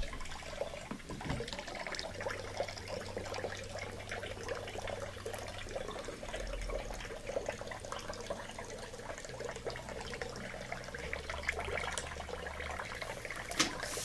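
Water left in the tub of an LG front-loading washer that won't drain, running steadily out of the opened drain tube into a plastic bowl.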